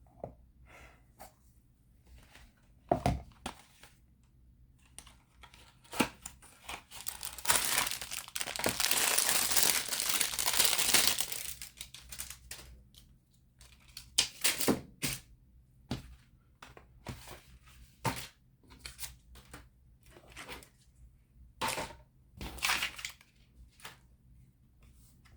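Plastic packaging and protective film being handled: scattered clicks and taps, and one long tearing, peeling sound of about four seconds near the middle.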